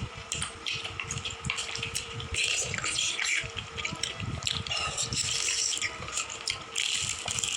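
Close-miked eating sounds: repeated chewing, crunching and wet mouth noises coming thick and irregular.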